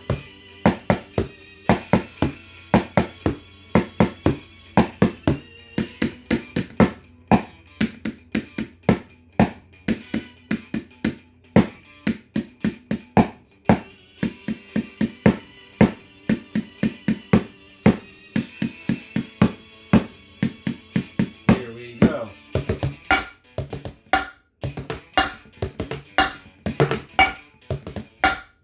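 Kitchen-kit percussion: metal ladles and spoons drumming a steady rhythm on upturned plastic mixing bowls, a plastic tub and a pot, played over a backing track. About three-quarters of the way through, the strikes come faster and some ring with a pitch.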